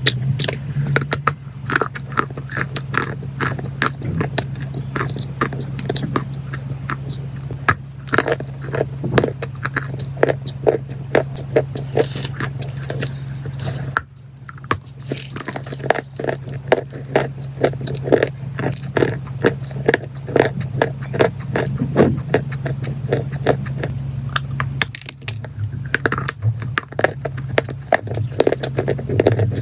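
Close-miked biting and chewing of crunchy chalk and clay: rapid crisp crunches and scraping bites in quick succession, with a brief break about halfway through. A steady low hum runs underneath.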